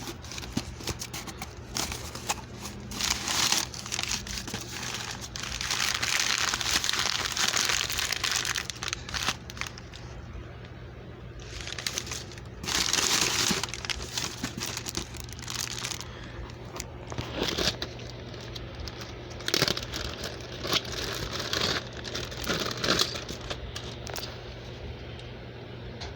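Box packaging being opened and handled: repeated bursts of crinkling and rustling with scattered clicks and knocks, the longest stretch of crinkling starting about six seconds in and lasting some three seconds.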